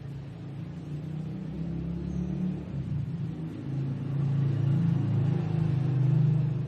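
Handheld power tool motor running against a surface with a low, steady hum, growing louder in the second half.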